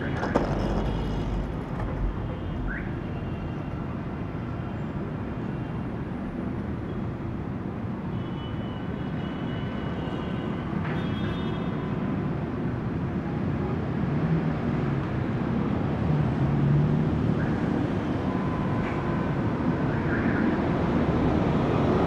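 City street traffic noise: a continuous rush of passing cars and engines from fairly heavy traffic, with a few short high tones heard through it. The traffic grows a little louder in the second half.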